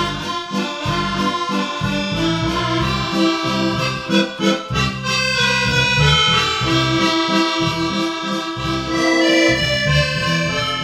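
Accordion music played on a Roland FR-8x digital accordion: held chords and melody over a steady beat and bass line from a Roland BK-7m backing module.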